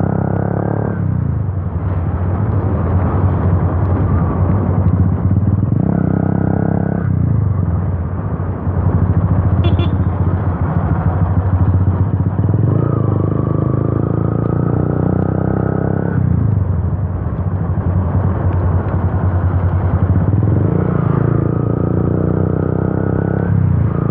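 Yamaha FZ V2's single-cylinder engine running loud through an Akrapovic exhaust with the dB killer removed, while the bike is ridden. The exhaust note shifts several times with the throttle.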